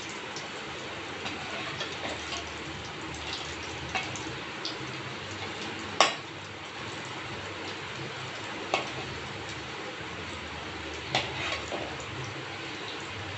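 Batter-coated chicken pieces deep-frying in hot oil in an iron kadai, a steady sizzle. A few sharp clinks of a metal perforated skimmer against the pan as the pieces are turned, the loudest about six seconds in.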